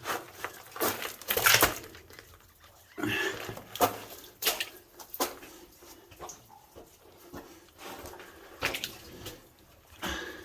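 Footsteps wading and splashing through shallow water and mud in a low, wet mine tunnel, in irregular sloshes that echo off the rock.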